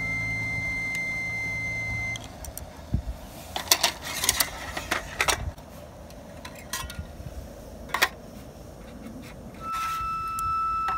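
Light clicks and clinks of tableware being handled: chopsticks tapping a lacquer bowl, and a stainless steel pot lid lifted off and set down on an aluminium camp table. Soft plucked background music plays at the start, stops after about two seconds, and comes back near the end.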